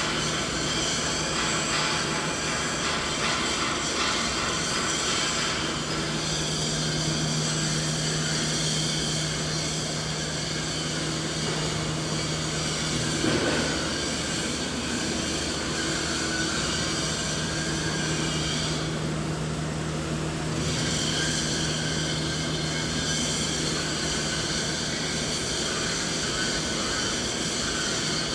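Steady mechanical machine noise: a continuous low hum under a broad hiss, with no rhythm or break. The upper hiss drops away for about a second roughly two-thirds of the way through.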